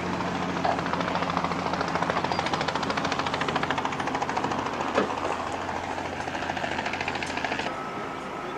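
An engine running with a low droning hum and a rapid, rough pulsing beat, with a sharp click about five seconds in. Near the end the sound changes abruptly to a steadier background with a thin high whine.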